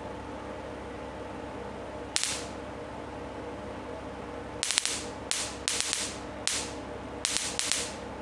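Electric sparks from a small 5-volt high-voltage generator module, sold as a 400,000-volt generator, cracking across the air gap between its two output wires. There is one sharp snap about two seconds in, then a run of sharp cracking snaps, some in quick clusters, from about halfway through, over a faint steady hum. The sparks jump a wide gap without the wires touching, the sign of a very high output voltage.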